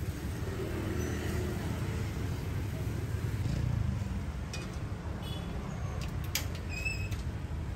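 Steady low rumble of street traffic. In the second half there are a few short high chirps and one sharp click.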